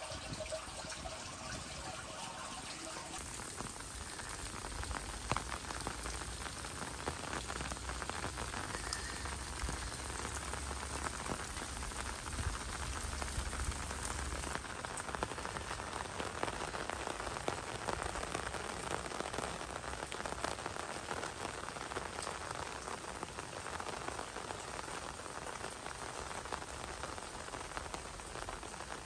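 Steady rain falling, many nearby drops heard as fine ticks, with a low rumble for about ten seconds in the first half.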